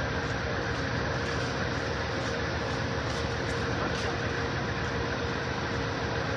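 Steady hum and rumble from an Amtrak bilevel passenger train standing at the platform, with a couple of steady tones in it.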